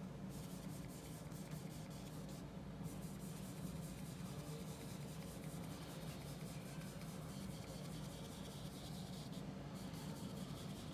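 A soft brush lightly stroking oil paint across gesso-coated paper, many quick light strokes, over a steady low hum.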